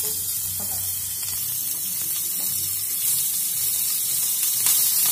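Pork strips sizzling as they sear in hot oil in a frying pan, a steady hiss that grows a little louder about three seconds in.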